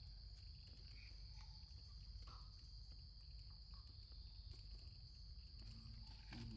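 Faint, steady high-pitched drone of insects such as crickets, unbroken throughout, over a low background rumble.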